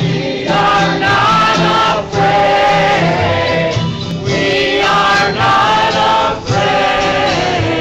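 A group of voices singing a slow song in long held phrases, with brief pauses between them.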